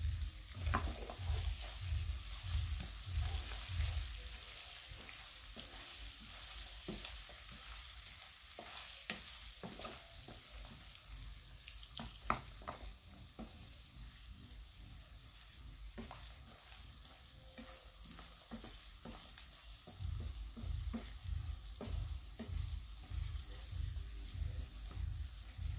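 Cauliflower and potato pieces sizzling steadily in hot oil in a frying pan, with a wooden spatula scraping and clicking against the pan as they are stirred. A low rhythmic thumping comes in the first few seconds and again from about two-thirds of the way through.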